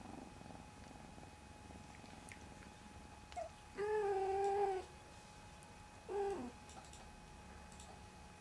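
Domestic cat purring under a massage, with a brief chirp and then a drawn-out, even meow about four seconds in, and a shorter meow that drops in pitch about six seconds in.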